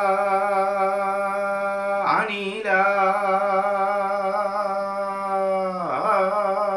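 A man's voice chanting a Sanskrit sloka in the Kutiyattam swara Chedi Panchamam: long held notes at a steady pitch with a slight waver. A short break and re-attack comes about two seconds in, and a falling glide near six seconds.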